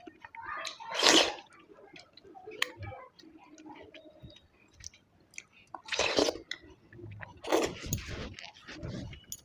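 Close-up eating sounds: wet chewing of juicy mango, with several louder wet mouth bursts about a second in and again in the second half.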